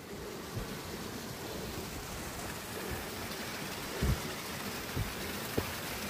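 Small waterfall: a steady rush of falling, splashing water, with a few soft thumps, the loudest about four seconds in.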